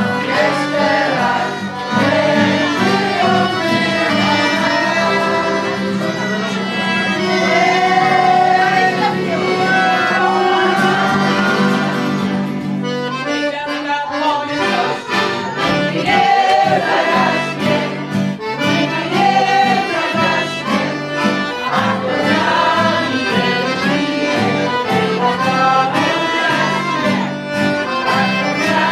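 Live band music: a melody of long held notes over steady bass notes, with voices singing along. The music thins out briefly about thirteen seconds in.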